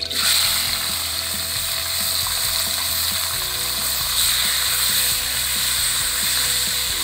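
Marinated chicken pieces with garlic hit a hot metal wok and start sizzling loudly and suddenly. The sizzle holds steady while the meat is stir-fried with chopsticks.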